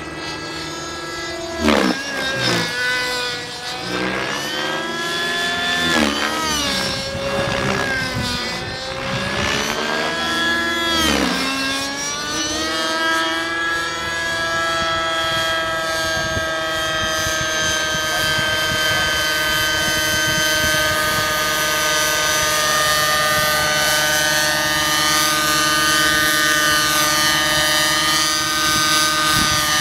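Align T-Rex 600N RC helicopter's nitro glow engine and rotor screaming at high revs during aerobatic flight. For the first twelve seconds the pitch swoops sharply down and back up several times; after that it holds a steady high note.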